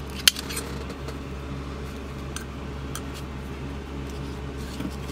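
Light metallic clicks of steel sewing machine needle plates being handled, one sharp click about a third of a second in and a few faint ones later, over a steady low mechanical hum.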